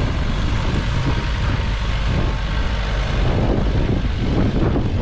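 A van's engine revving under load as it drives out of deep mud, with strong wind buffeting the microphone.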